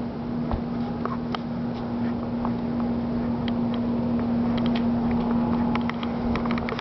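A steady low mechanical hum on one even pitch, with scattered light clicks and ticks over it, more of them in the second half.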